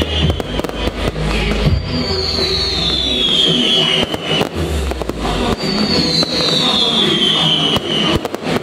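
Fireworks display: aerial shells bursting and crackling in a quick, irregular series over loud show music. The music carries deep bass and a high falling tone that comes back every few seconds.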